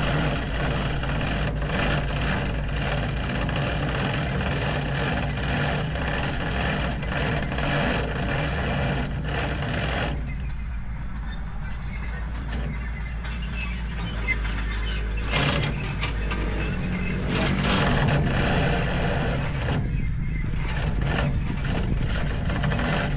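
A large diesel engine running steadily at a constant speed, with a few short, sharp noises over it about two-thirds of the way through.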